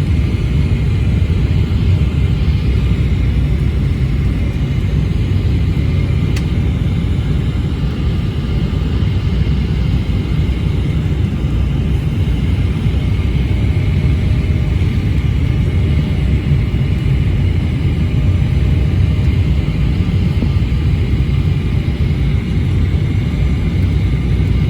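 Airliner cabin noise heard from a passenger seat: a steady, loud rumble of engines and airflow with a hiss above it, during the approach to landing.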